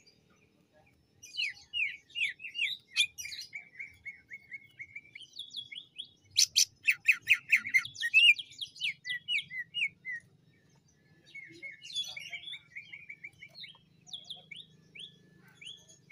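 Male greater green leafbird (cucak ijo) singing fast runs of short whistled and chattering notes, loudest about six to eight seconds in. It pauses briefly around ten seconds, then sings again.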